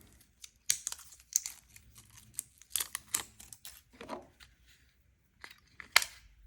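Tight packaging being handled and pulled open by hand: irregular crinkling and rustling with short scrapes and clicks, one sharp click near the end.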